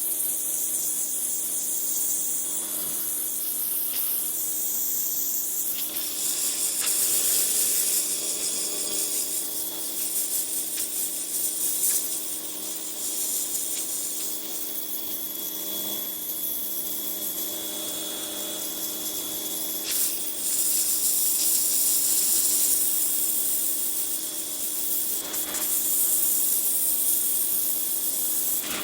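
Pressure washer spraying water: a loud, steady hiss of the jet that swells and eases as the spray moves, over a steady low hum.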